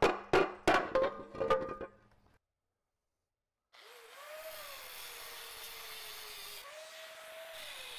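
A quick run of sharp knocks, about three a second, for the first couple of seconds. About four seconds in, an angle grinder with a flap wheel starts grinding the engine block's flange for transmission clearance. Its motor whine sags in pitch as it bears on the metal and picks back up.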